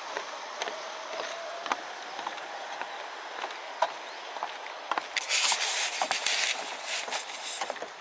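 Footsteps crunching on loose gravel and stones, with a denser, louder patch of crunching about five seconds in, over the steady rush of a shallow stream.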